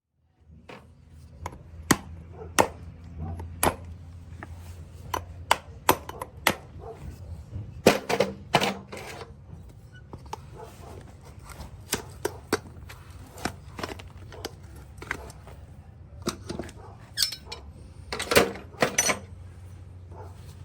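Farrier's hand tools working a horse's hoof: irregular sharp clicks and short scraping cuts against the hoof, some in quick clusters, over a steady low hum.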